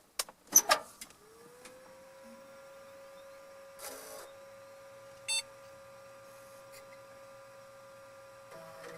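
Floppy disk drive working: a few loud clacks in the first second, then a steady hum that rises in pitch and settles. Short mechanical buzzes come about four seconds in and again near the end.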